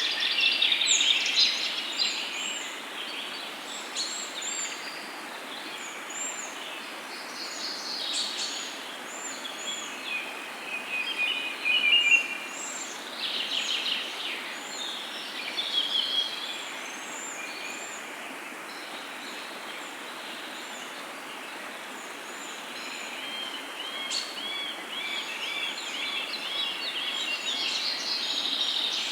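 Several birds calling and chirping over a steady hiss of outdoor background noise. A quick run of about ten repeated notes comes near the end.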